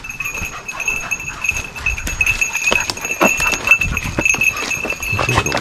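Footsteps and rustling through dry leaves and twigs on a forest floor, irregular crunches and snaps, with a steady high tone behind them.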